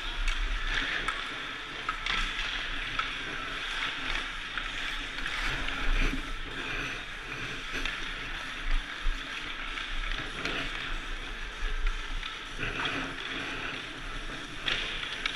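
Busy ice-rink ambience: a steady hiss of many skate blades carving and scraping the ice, with scattered sharp clacks of hockey sticks and pucks.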